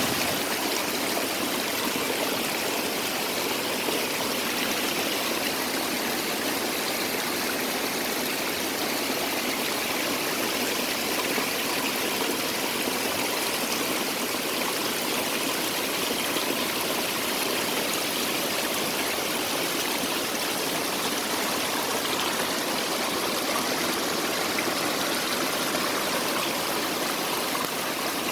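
Small rain-fed waterfall of water spilling from mossy rock crevices and running down over dwarf bamboo, a steady rushing and splashing with no change in level.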